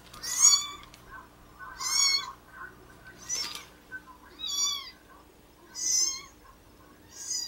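A kitten meowing, played back through a laptop's speakers: repeated high-pitched meows, about one every second and a half.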